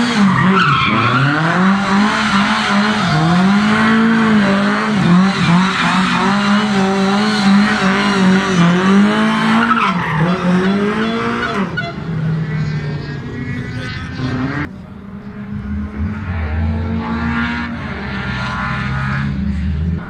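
Lada rally car drifting on tarmac: the engine revs rise and fall again and again while the tyres squeal and skid. About twelve seconds in the sound changes abruptly to a steadier, quieter engine note, dropping lower a few seconds later.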